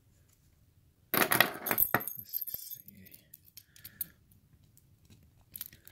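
A sharp metallic clatter about a second in, then scattered light clicks and taps as a hardened steel padlock and its keys are handled.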